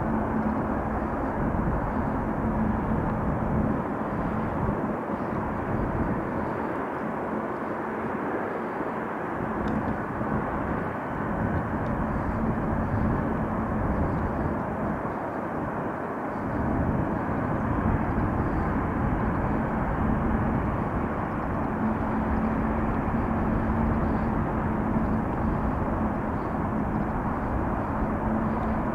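Jet airliner engines running: a steady rushing noise with a low hum through it.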